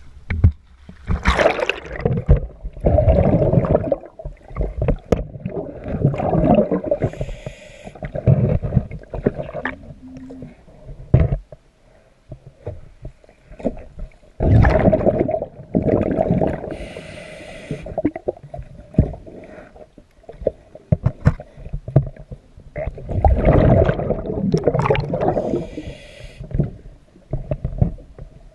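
A scuba diver's regulator breathing underwater: three breaths about nine seconds apart, each a long rumbling, gurgling rush of exhaled bubbles with a short high hiss of air through the regulator.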